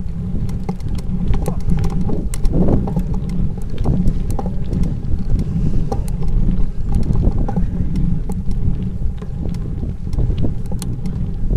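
Wind buffeting the microphone of a camera mounted on a moving bicycle, a heavy, fluctuating rumble, with many small clicks and rattles as the bike rolls over rough concrete.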